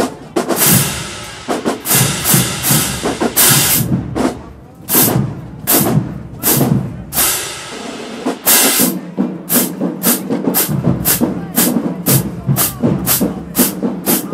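HBCU marching band drumline playing a marching cadence: loud drum hits and crashes, settling into a steady beat of about three hits a second about two-thirds of the way in.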